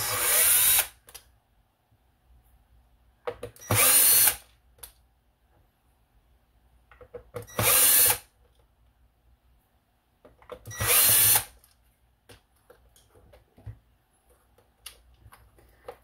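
Handheld power screwdriver running in four short bursts of about a second each, a few seconds apart, backing out screws from a robot vacuum's plastic base. Each burst has a motor whine that rises as the bit spins up and drops away when it stops.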